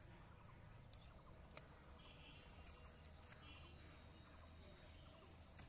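Near silence with a few faint, scattered clicks of a cow cropping leafy plants as it grazes.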